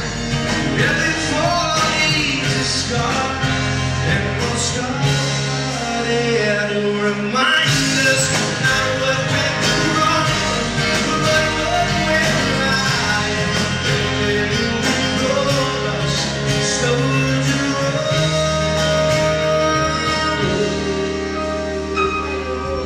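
Live rock band playing a song with electric and acoustic guitars, electric bass and a drum kit, the music running steadily without a break.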